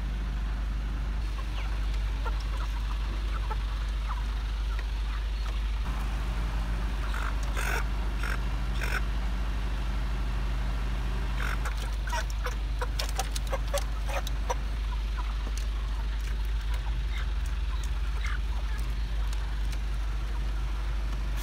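Broiler chickens packed in transport crates give short clucks and squawks in two clusters, the second busier, over the steady low drone of the stopped poultry truck's engine.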